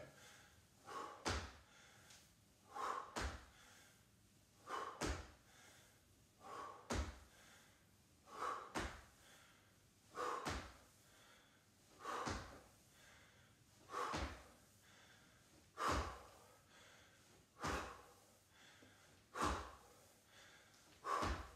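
Repeated squat jumps landing on a wooden floor in trainers: about a dozen dull thumps, one roughly every two seconds, each followed by a short puff of breath.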